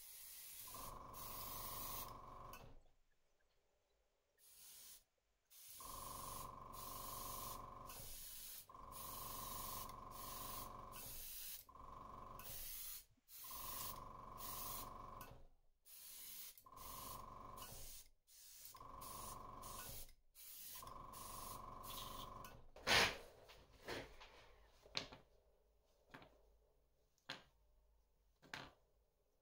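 Airbrush spraying paint through a mesh stencil onto a lure in about nine bursts of one to three seconds each, with short pauses between trigger pulls. Each burst is a hiss of air with a steady tone under it. After the spraying stops there is one sharp knock, then several light clicks.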